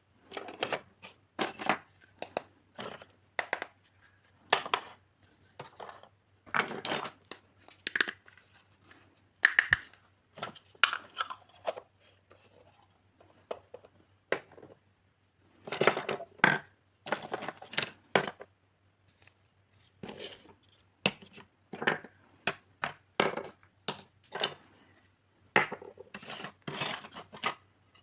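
Small plastic toy kitchen pieces and their packaging being handled: irregular clicks, clacks and short rustles, over a faint steady low hum.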